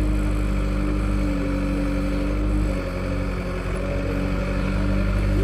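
Heavy diesel engine of earth-moving machinery running under load. Its speed eases off slightly about halfway through, then picks back up.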